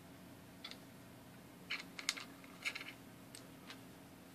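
A few faint, scattered light clicks and taps, about six in all, from small plastic parts of the opened clock housing and circuit board being handled.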